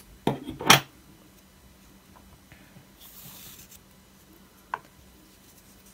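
Quiet handling sounds of scissors and yarn: two sharp clicks under a second in, a brief soft hiss about three seconds in, and one small tick near the end.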